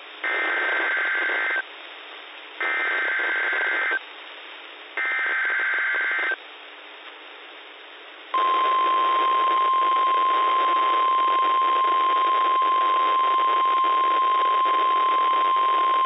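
NOAA Weather Radio emergency alert: three short, buzzy warbling data squawks about a second apart, which are the digital SAME alert header. At about eight seconds in, the steady single-pitch 1050 Hz Weather Radio warning alarm tone starts and holds. Radio hiss runs underneath.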